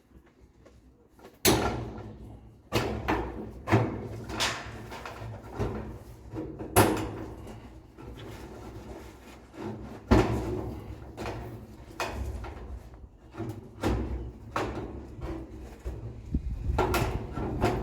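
Repeated knocks and clattering of Colorbond steel fence sheets and posts being pushed and shifted into place, about a dozen separate impacts with short ring-outs.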